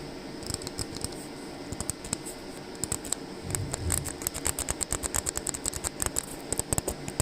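Lower brake-pedal limit switch from a 2013 Nissan Leaf, its plunger pressed over and over by hand, giving a fast irregular run of clicks and squeaks. The squeak inside the switch is the cause of the squeaking brake pedal.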